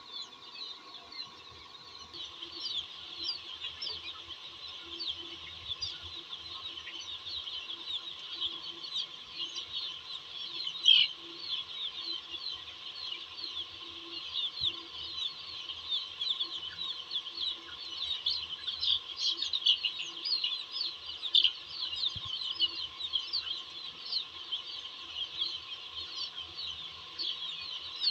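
A large flock of young chicks peeping continuously: a dense chorus of short, high, falling cheeps, with a faint steady hum underneath.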